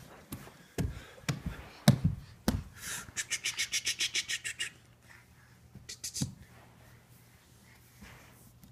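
Scattered knocks on a hardwood floor from a crawling toddler and his toy trucks. Then comes a quick run of about a dozen sharp, hissy pulses, about eight a second, lasting under two seconds.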